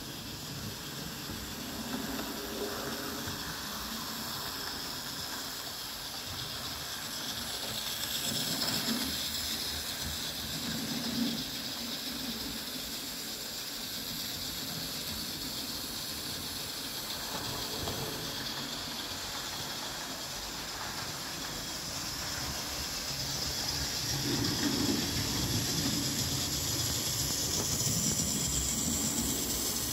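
OO gauge model train running on its track: a steady whir of the small electric motor and wheels on the rails. It grows louder as the train comes close, about eight seconds in and again near the end.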